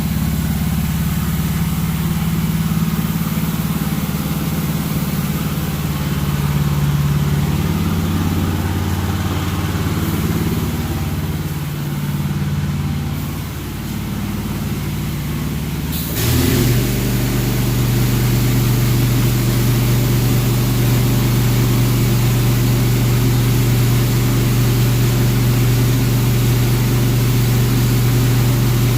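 A motor running steadily with a low droning hum. About sixteen seconds in, the sound changes abruptly to a steadier, stronger low drone.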